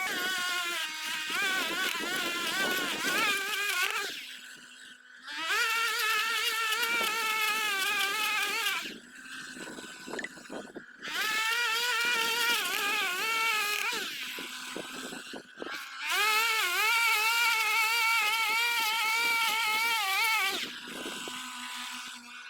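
Small petrol engine of a handheld garden power tool, most likely a line trimmer, revved up under load four times with a wavering pitch, dropping back to a lower idle between each run.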